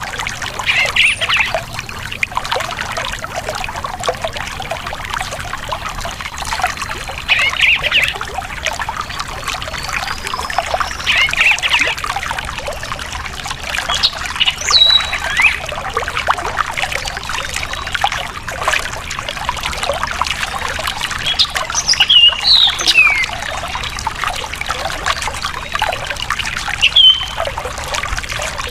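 Stream water trickling and babbling over stones, with birds calling in short chirps every few seconds.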